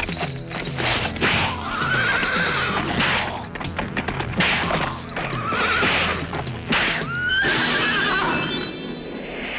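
A horse whinnying three times over dramatic music with a steady low beat. A rising run of tones comes in near the end.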